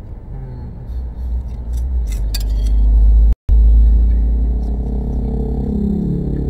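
Deep vehicle rumble heard from inside a car, building to its loudest about three seconds in, breaking off for an instant, then slowly easing. A few light clinks of a spoon on a plate come about two seconds in.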